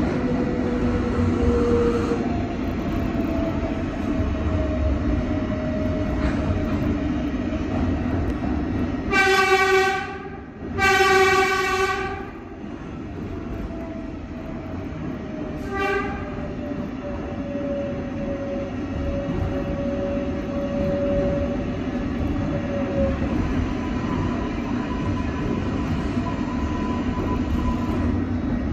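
New York subway train running at speed, heard from inside an R142A car: a steady rumble with a faint motor whine that slowly falls in pitch. About nine seconds in a train horn sounds two long blasts, then one short toot a few seconds later.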